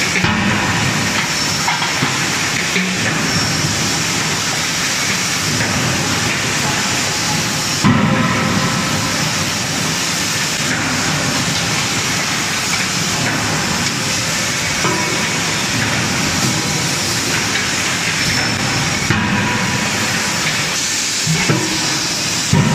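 Continuous hiss and rumble of a running hot-forging line, a hydraulic closed-die forging hammer with its heating furnace, with a sharper thump about eight seconds in and another near the end.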